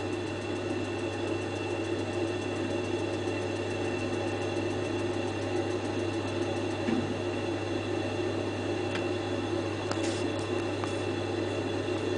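Worcester 28CDi combi boiler's flue fan running steadily, with a few faint clicks in the second half, as the boiler goes through its ignition sequence. The burner fails to light.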